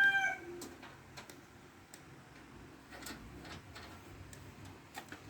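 A few faint, scattered light clicks and taps over low background noise.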